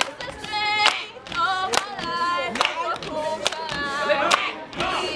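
A group of voices singing in unison, with a sharp clap on the beat a little under once a second.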